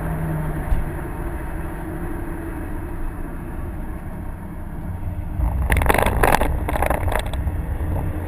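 In-cabin sound of a 2011 Subaru WRX's turbocharged 2.5-litre flat-four (EJ255) under way at track speed, a steady engine drone with road and tyre noise. About five and a half seconds in, a louder run of rushing noise bursts lasts roughly two seconds.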